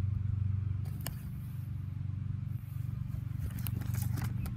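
A steady low mechanical hum, like an engine running, with a few sharp clicks and taps.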